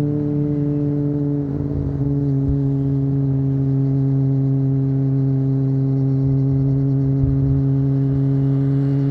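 Kawasaki ZX25R's 250 cc inline-four running through an Akrapovic exhaust at steady revs while riding. About a second and a half in, the level dips briefly and the pitch steps down slightly, then the engine holds steady again.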